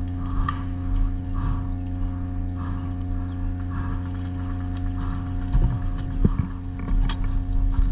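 Footsteps on leafy ground, about one step a second, over a steady low hum, with a few sharp clicks and knocks in the last few seconds.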